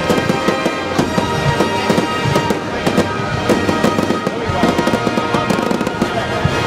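Aerial fireworks shells bursting in a rapid run of bangs, several a second, during a fireworks finale, with music playing along.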